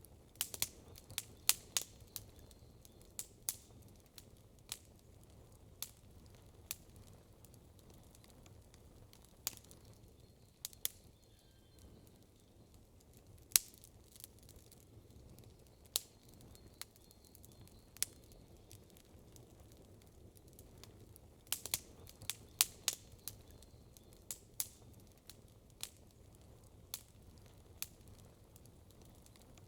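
Campfire crackling: sharp pops of burning wood at irregular intervals over a faint low rumble, with a quick run of pops near the start and another about two-thirds of the way through.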